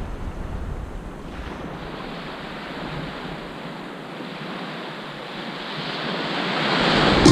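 Ocean surf washing on the beach, with wind buffeting the microphone. The deep wind rumble eases after about two seconds, and the rushing noise swells again near the end.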